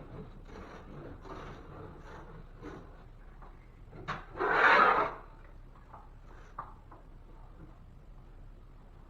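Hand work on a drywall patch: irregular rubbing and scraping strokes against the drywall, with one much louder scrape or rip about four and a half seconds in.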